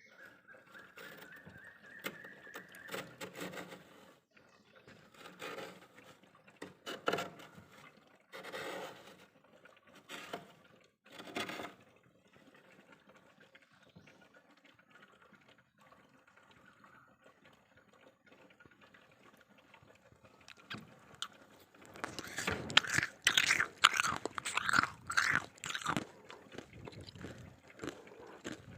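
Freezer frost being scraped up with a spoon and crunched between the teeth: irregular crunchy bursts with pauses between, growing denser and louder near the end.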